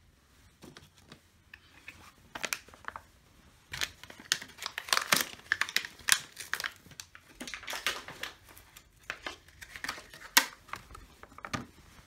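Irregular crinkling and scratching, thickest in the middle and with a few sharper peaks: hands rubbing and handling cleaning wipes and their foil packets while cleaning a delidded CPU.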